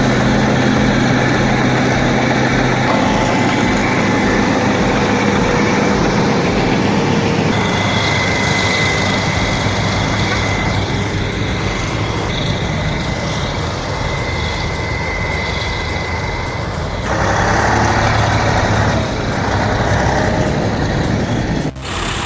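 Heavy diesel machinery running under load, with the engine sound changing abruptly several times as the footage cuts between machines. A steady high whine sounds over the engine noise from about a third of the way in to about three quarters.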